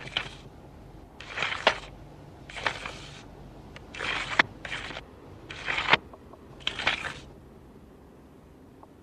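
A long blade being swung in a string of about six short, rasping swishes, a little over a second apart, each with a sharp click at its peak. They stop about seven seconds in.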